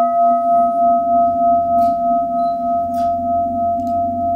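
Singing bowl ringing on from a single strike, its several tones wavering in a slow pulse about two or three times a second and fading gradually. It is sounded to open a tea meditation.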